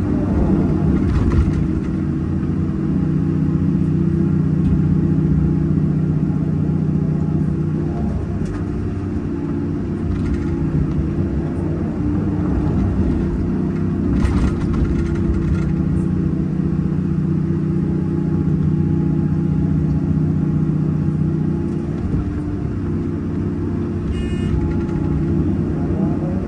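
Hyundai 330 crawler excavator's diesel engine running under load from the operator's cab, its note rising and falling a little as the hydraulics swing the boom and dig. A few brief clatters come from the bucket biting into stony soil, the clearest about halfway through.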